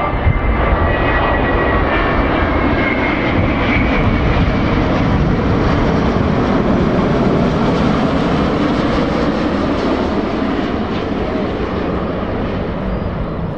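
Airbus A330-900 airliner's Rolls-Royce Trent 7000 turbofans on final approach to land: a steady, loud jet roar, with a high whine in the first few seconds, easing a little near the end.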